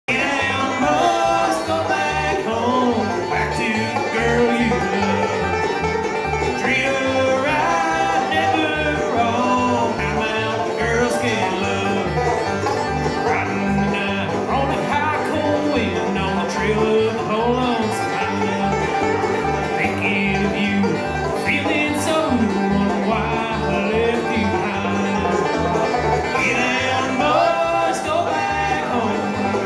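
Live bluegrass band playing a tune on banjo, mandolin, acoustic guitar and upright bass, the bass plucking a steady beat under quick plucked banjo and mandolin lines.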